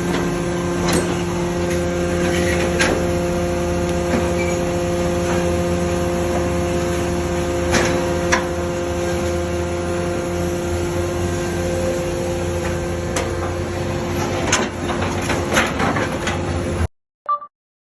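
Dalongkai Y81K-250 hydraulic scrap-metal baler running: the steady hum of its hydraulic power unit, with scattered metallic clanks and knocks. The sound cuts off suddenly about a second before the end.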